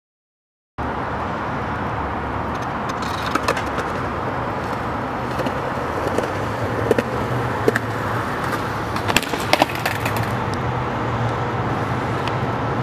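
Skateboard on concrete: a steady rough rolling noise that starts suddenly just under a second in, with a handful of sharp board clacks, some in close pairs.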